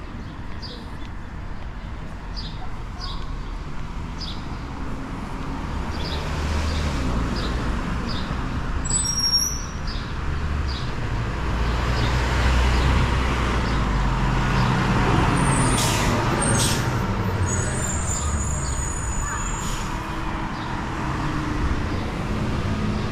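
Street traffic with a motor vehicle's engine rumble building up, running loudest in the middle, then easing off as it passes, with a short burst of hiss partway through.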